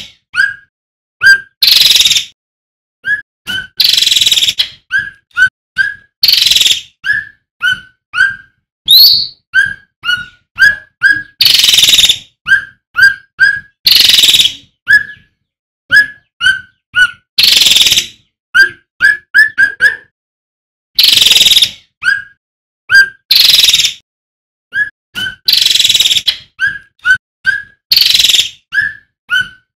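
Male cucak ranting (cucak rante) singing: a rapid run of short, clear whistled notes, each with a quick upward flick. These are interleaved every second or two with louder, harsher half-second phrases.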